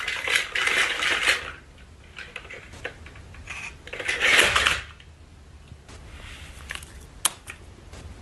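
Battery-powered toy dinosaur walking on a wooden floor, giving two long bursts of rasping, clattering noise and then a couple of sharp clicks near the end.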